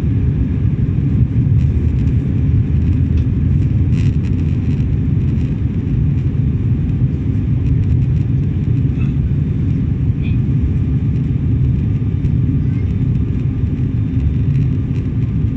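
Steady low drone inside the passenger cabin of an ATR 72-600 turboprop airliner in flight: the sound of its two turboprop engines and the airflow over the fuselage.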